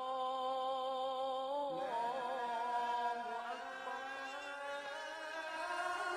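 Wordless devotional vocal chant: a voice singing long held notes that shift to a new pitch a little under two seconds in, as the opening of a nasheed.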